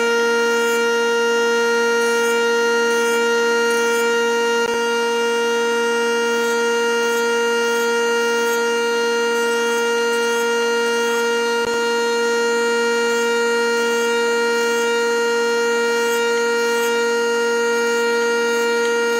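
Industrial woodworking jointer running with a loud, steady whine from its spinning cutterhead while wood slices are fed across it.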